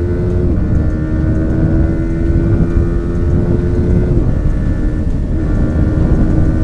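Yamaha R15's 155 cc single-cylinder engine running hard at high revs during a full-throttle run, its pitch dipping briefly about half a second in and again about four seconds in, with wind rushing over the microphone.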